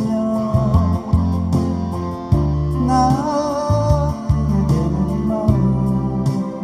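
Live band music with electric bass and guitar. A lead melody line wavers and bends in pitch over steady bass notes that change every second or so.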